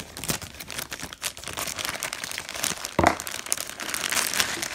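Clear plastic parts bags crinkling and crackling as they are handled. It is a bag of kit parts with smaller bags packed inside it, and it gives a steady stream of small crackles with a louder crinkle about three seconds in.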